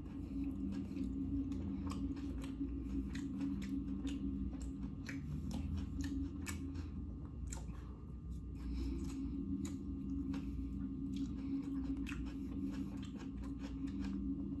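A person eating from a takeout bowl: chewing, with frequent small clicks of the fork against the bowl and teeth, over a steady low hum.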